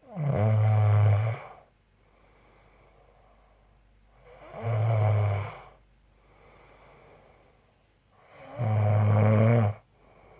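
A man snoring very loud: three long, low snores about four seconds apart, with softer breathing out between them.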